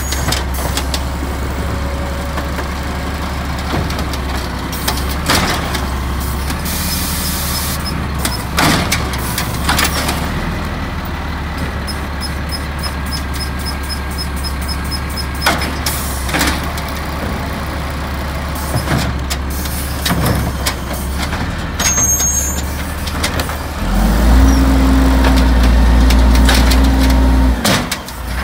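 Automated side-loader garbage truck working a wheeled recycling cart: the diesel engine runs steadily while the hydraulic arm grabs, lifts and dumps the cart, with scattered clanks and short air hisses. About 24 seconds in, the engine speeds up and holds a steady higher tone for a few seconds before dropping back.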